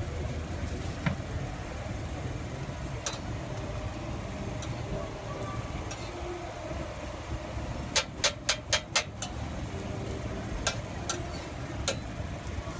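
A metal spatula tapping and scraping on a flat griddle as patties and omelettes are turned. Sharp taps come every few seconds, with a quick run of five or six taps about two-thirds of the way through, over a steady low rumble.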